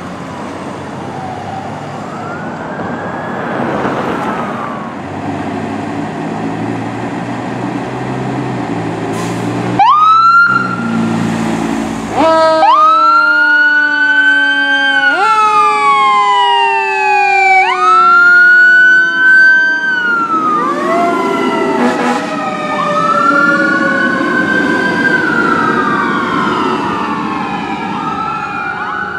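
Pierce fire engine responding: its siren wails in repeated rising and falling sweeps over the truck's engine, faint at first and loud from about ten seconds in, when a loud blast sounds.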